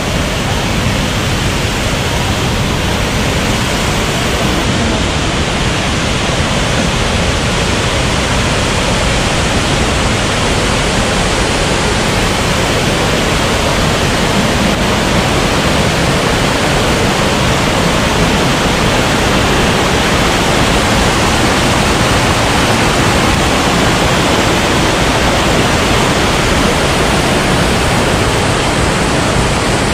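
Mountain stream rushing over boulders at the foot of a waterfall: a loud, steady wash of white water.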